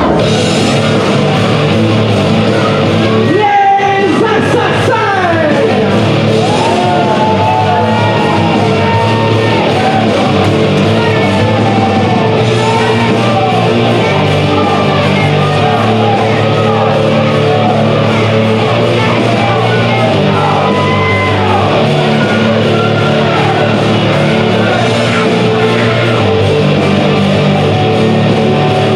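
Loud rock entrance music with singing, played for the wrestlers as they come to the ring.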